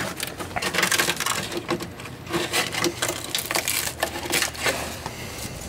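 Irregular crunching, crackling and scraping clicks of brittle material breaking away: rusted-through sheet metal and flaking undercoating on a VW bus underbody being picked and broken apart by hand.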